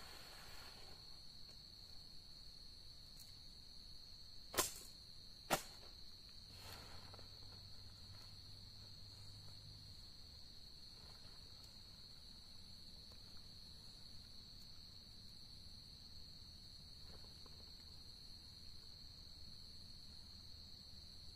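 Crickets trilling faintly and steadily, one continuous high-pitched drone. Nearly five seconds in come two sharp clicks about a second apart, with faint rustling of tent fabric.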